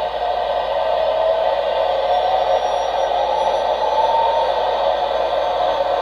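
Sound-fitted 00-gauge APT-E model playing its gas-turbine sound: a steady turbine whine with a tone that rises a little about halfway through, as the train gets ready to move off.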